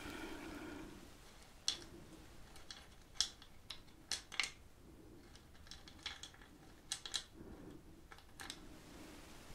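Fingertips picking through small hard chunks of incense resin in a wooden bowl: a dozen or so sharp clicks and light rattles at irregular spacing.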